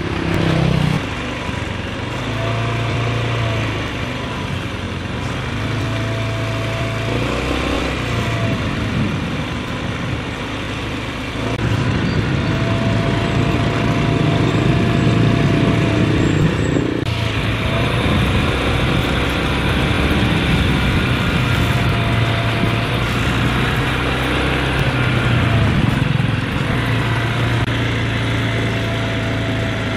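Small motorcycle engine running steadily at low speed, its pitch wavering slightly up and down, and a little louder from about 11 seconds in.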